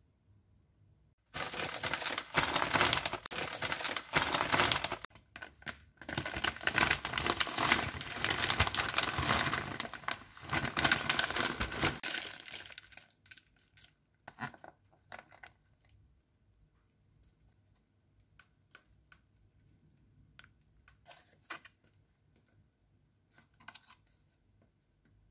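Plastic packaging bags being handled and crinkled, loud and continuous from about a second in until about halfway through, when it stops. A few scattered light taps and clicks follow.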